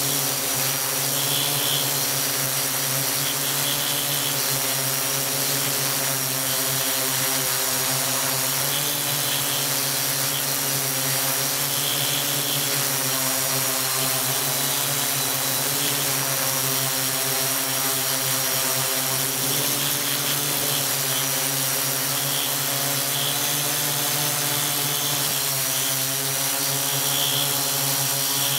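Multirotor drone motors and propellers running steadily in a hover, a droning hum whose pitch wavers slightly as the motors adjust, with a thin high whine above it.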